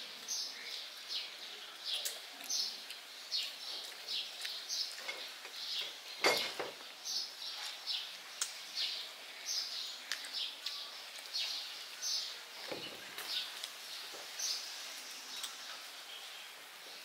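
Small bird chirping repeatedly, short high calls about once or twice a second. A single sharp knock, like a dish or spoon on the table, comes about six seconds in.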